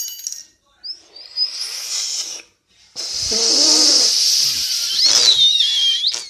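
Breath hissing and whistling past a keyboard key cap stuck on the front teeth: a sharp click first, then long blowing with a high whistle that wavers and slides down near the end.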